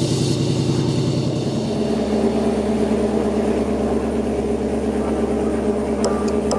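Stock V8 sports-car exhaust idling steadily with a deep, even note. Near the end, a regular high ticking comes in.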